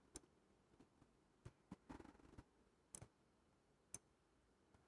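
Faint, irregular clicks and ticks of a lock pick working the pins of an American 748 six-pin padlock under tension, about a dozen small clicks spread unevenly.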